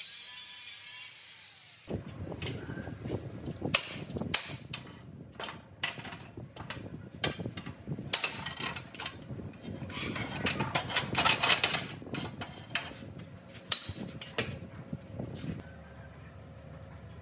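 Hand tools working on metal machine parts: irregular sharp knocks and clanks, several a second at times. A hiss cuts off about two seconds in, before the knocking starts.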